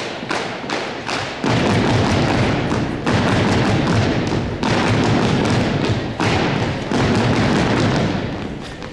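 Unarmed drill team stomping on a hardwood gym floor: a steady beat of sharp stomps about two and a half a second, then, from about a second and a half in, four sudden bursts of dense rapid stomping, each about a second and a half long, tailing off near the end.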